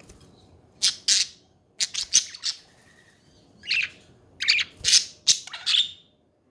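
Pet budgerigars chattering and squawking in short, harsh, high-pitched calls that come in several quick clusters.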